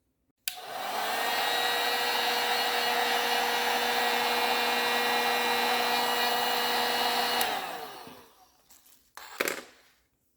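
Heat gun switched on with a click, its fan and element running steadily for about seven seconds to shrink heat-shrink tubing over a crimped wire connector, then switched off and spinning down. A short knock near the end.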